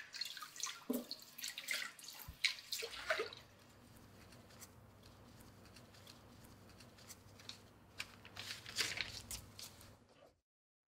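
Light clicks, knocks and rustling of things being handled, in two clusters: the first few seconds and again near the end, with a faint steady hum between. The later cluster is rummaging in a wardrobe among hanging clothes. The sound cuts off abruptly just after ten seconds.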